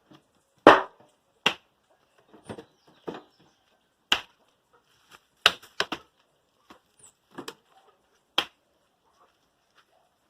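Dry firewood being handled: about a dozen sharp, irregular wooden knocks and clacks as sticks are picked up and dropped against each other. The loudest knock comes under a second in.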